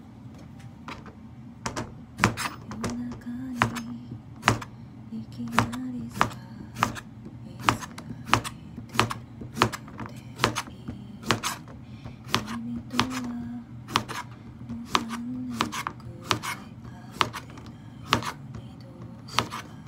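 Kitchen knife slicing a cucumber on a plastic cutting board: sharp knocks of the blade meeting the board, irregular, about one to two a second.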